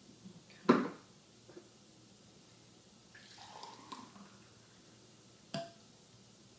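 Juice poured from a glass pitcher into a wine glass, a short splashing pour about three to four seconds in. Two sharp knocks of glassware being handled: one loud knock near the start and another about five and a half seconds in.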